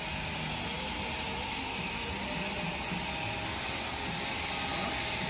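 Steady whirring machine noise with a faint steady whine, unchanging throughout, like a motor-driven tool or extractor running.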